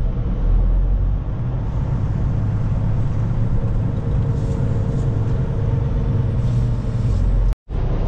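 Semi truck's diesel engine running as it drives slowly, a steady low rumble with a faint steady tone in the middle. The sound drops out suddenly for a split second near the end.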